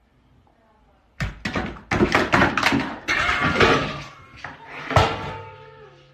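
After about a second of quiet, a sudden commotion of repeated loud knocks and thumps mixed with a voice-like cry that bends in pitch, ending in a held tone.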